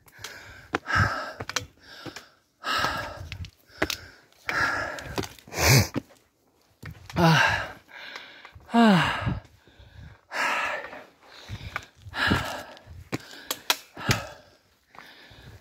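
A man breathing hard while climbing a steep stone trail: heavy, rapid breaths about one a second, some exhalations voiced and falling in pitch, with a few sharp clicks of steps on rock.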